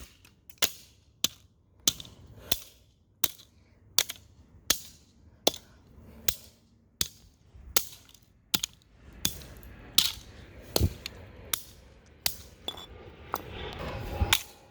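A steady run of sharp impact cracks, about three every two seconds, as a charger is smashed, with a rougher rumbling noise between the strikes near the end.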